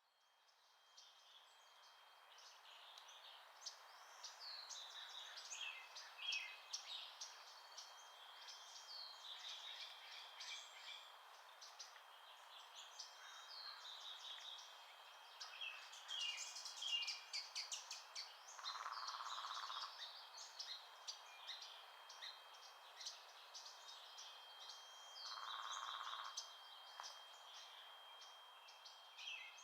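Faint chorus of several songbirds chirping and trilling over one another, fading in at the start, with a steady thin high tone beneath them and two short lower buzzy notes in the second half.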